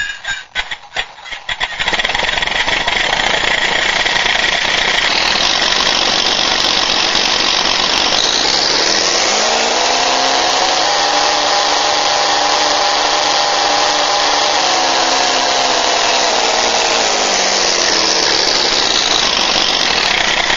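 Two electronic RC sound modules playing a Daimler-Benz aircraft engine sound through small speakers, slightly out of step to give a twin-engine effect. The engines sputter and catch in the first two seconds, then run steadily, rev up about nine seconds in, hold, and drop back toward idle near the end.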